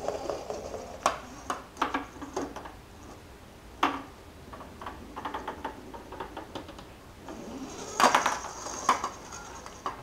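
Toy BB-8 droid rolling on a wooden floor: irregular clicks and knocks, with a louder clatter about eight seconds in.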